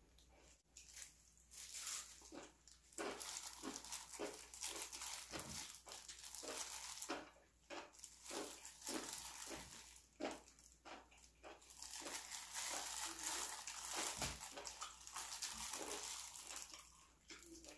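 Close-miked eating sounds: wet chewing and mouth noises, with a plastic-gloved hand crinkling and squelching as it pulls enoki mushrooms and a whole braised octopus through thick sauce in the pan.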